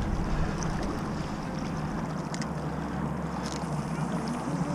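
Steady wash of wind and river water around a small fishing boat, with a low rumble underneath and a few faint high ticks about two and a half and three and a half seconds in.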